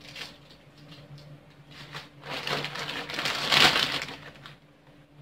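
Plastic food packaging and a zip-lock bag crinkling as they are handled, building about two seconds in and loudest around three and a half seconds in. A faint steady low hum runs underneath.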